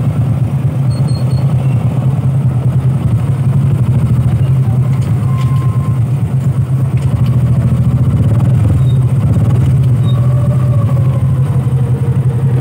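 Motorcycle engine of a motorized tricycle running steadily on the move, heard from inside the sidecar cab.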